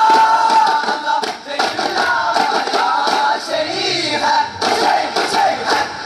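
A group of men singing in chorus while beating hand-held daff frame drums, as in Daff Muttu. The drum strokes fall into a steady beat about halfway through.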